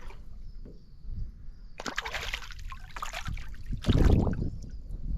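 Water splashing and sloshing by a small aluminium boat, in two bursts: one about two seconds in and a louder, deeper one about four seconds in.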